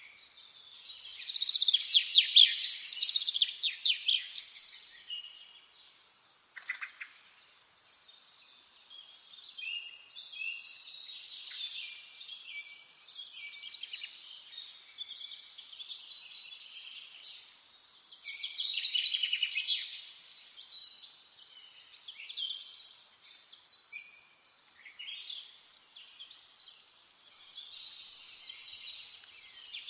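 Wild songbirds singing in woodland: a string of high chirps and warbled phrases, with louder rapid trilling songs about a second in and again about eighteen seconds in.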